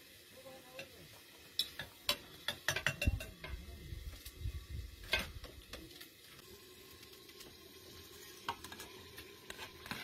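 Potatoes being cut with a knife over a metal bowl: a run of sharp clicks and knocks in the first half, then quieter.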